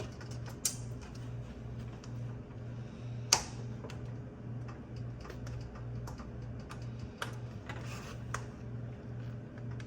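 Plastic film being peeled off a pack of raw chicken thighs: scattered small crackles and clicks, with a sharp snap about three seconds in. A steady low hum pulses underneath a couple of times a second.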